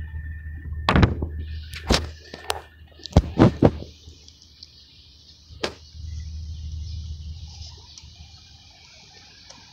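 A refuse truck's engine idling with a low hum, broken by a run of loud knocks and thunks in the first four seconds and one more near the middle. A steady hiss sets in about two seconds in, and the engine hum fades near the end.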